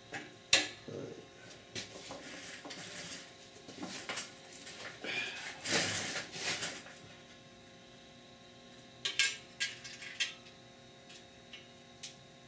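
Locking C-clamps and a sheet-metal patch piece clinking, scraping and clattering on a workbench as the piece is clamped down. There is a sharp metallic click about half a second in, a run of handling noise in the first half, and a cluster of clicks around nine to ten seconds, over a faint steady hum.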